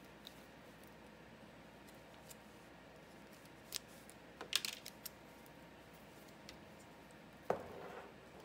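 Faint handling of small cables and plastic connectors: a few sharp clicks and rattles near the middle, then a single knock followed by brief rustling near the end.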